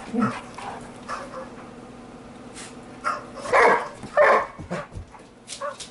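Two dog barks about half a second apart, a little past halfway through, over a quiet background with a faint steady hum.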